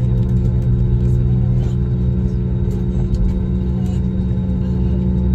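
Airliner cabin noise: a steady drone of the jet engines and airflow, with several constant hum tones over a low rumble and a few faint ticks.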